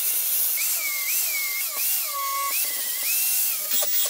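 Angle grinder cleaning up the edge of a plasma-cut steel flange plate held in a vise: a steady hiss of grinding with a high whine that dips and rises in pitch several times, breaking into irregular ticks near the end.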